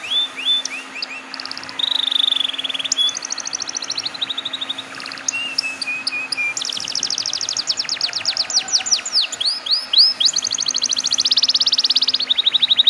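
Domestic canary singing a long, continuous song of fast trills: runs of rapid repeated high notes and downward-sweeping chirps, changing from one trill pattern to the next every second or two. A faint steady low hum lies beneath.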